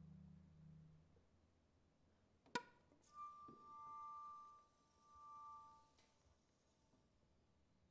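Quiet, sparse contemporary chamber music for flute, saxophone, percussion and accordion. A low held drone fades out, a single sharp strike comes about two and a half seconds in, and then two steady tones and a very high ringing tone are held for about three seconds.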